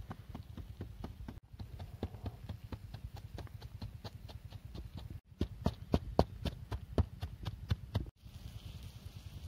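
Wooden pestle pounding chilies and other aromatics in a small mortar: a steady run of quick, dull knocks, several a second, louder from about five seconds in.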